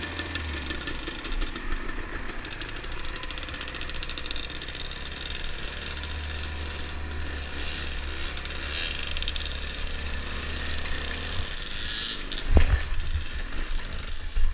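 Yamaha dirt bike engine running steadily as the bike rides a dirt trail, with one sharp, louder knock near the end.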